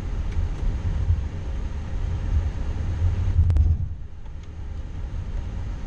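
Low, steady rumble in the cockpit of an Airbus A340-600 taxiing on the ground after landing. A couple of sharp clicks come about three and a half seconds in, after which the rumble and hiss drop noticeably quieter.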